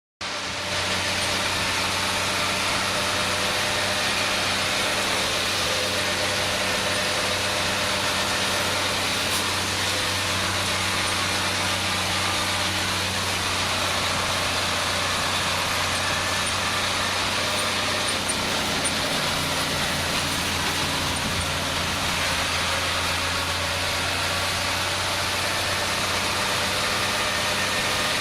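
IHC 1055 tractor's diesel engine running steadily, with a slight change in its low note about two-thirds of the way in.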